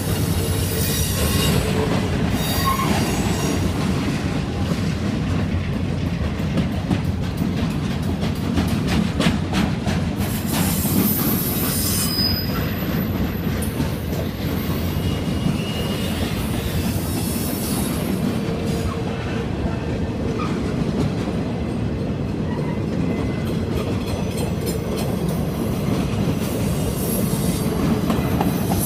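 Norfolk Southern work train rolling past with a steady rumble, wheels clicking rapidly over rail joints for a stretch in the middle and squealing briefly now and then.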